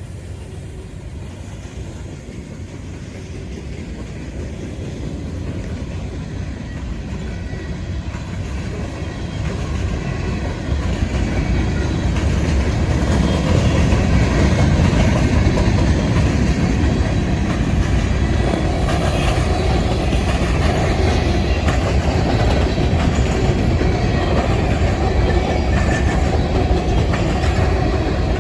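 A train rolling past on the track: wheel-on-rail running noise that grows louder over the first dozen seconds as the train draws near, then holds steady as it goes by.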